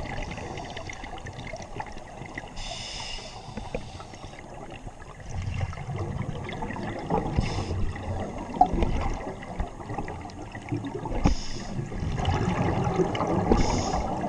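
Muffled underwater sound of scuba breathing through a regulator: a short hiss every few seconds, with the gurgle and rumble of exhaled bubbles, louder in the second half.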